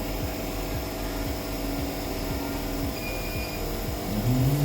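Steady machine hum with several fixed tones. Near the end, a new pitched tone comes in and rises.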